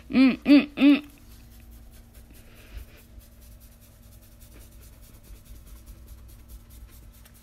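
Three short rising-and-falling vocal sounds in the first second, then soft rustling of a hand petting a small dog's short coat, with scattered faint clicks and a faint steady hum.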